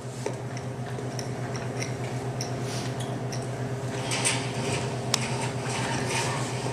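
Scattered small clicks, knocks and rustles of a scene change behind a closed stage curtain, over a steady low hum. About four seconds in the rustling grows denser as the stage curtain is drawn open, with one sharp click just after.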